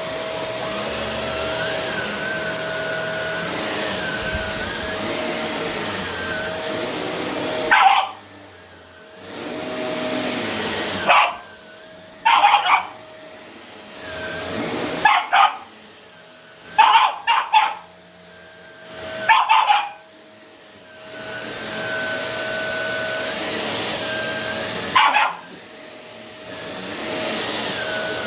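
Shark vacuum cleaner running with a steady whine, cutting out and starting up again several times. A Shiba Inu puppy barks in short, loud bursts, mostly in the gaps where the vacuum goes quiet.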